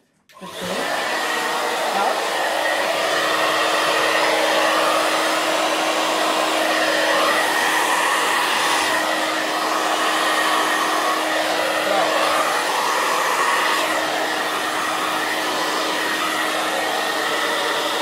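Hair dryer switched on about half a second in and running steadily: a rushing blast of air with a constant hum under it, blowing wet acrylic paint outward across a canvas.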